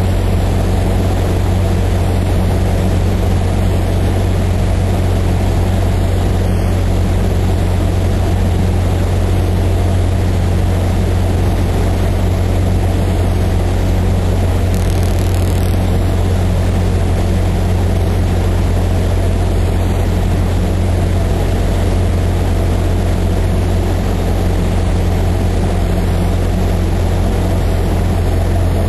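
A Cessna 152's four-cylinder Lycoming O-235 engine and propeller droning steadily, heard from inside the small cabin, with a strong low hum that holds level throughout.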